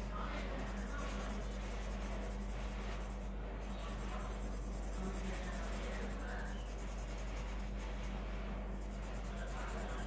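Pencil shading on paper: repeated scratchy back-and-forth colouring strokes, over a steady low hum.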